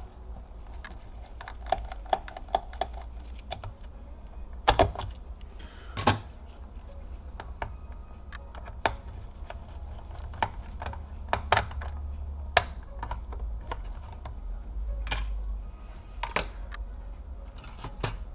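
Irregular clicks and taps of a laptop's plastic case being handled as its underside covers and screws are taken off, with a few louder knocks, over a low steady hum.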